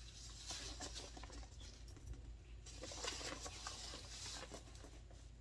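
Faint rustling and crackling from a handbag and its packing being handled and turned over.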